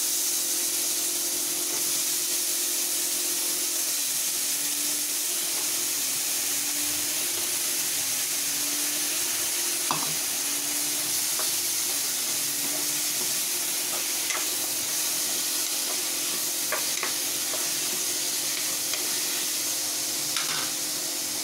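Chopped bottle gourd and onion masala sizzling in hot oil in an aluminium pressure cooker, a steady hiss throughout. A plastic spoon stirs the pieces, with a few light knocks against the pot.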